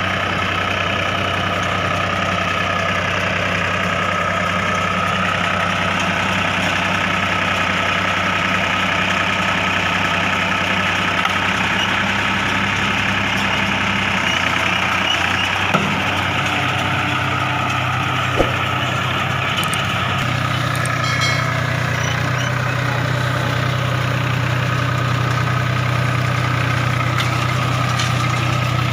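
Diesel engine of a New Holland 4710 tractor running steadily, its pitch stepping down about two-thirds of the way through. Two short sharp knocks sound near the middle.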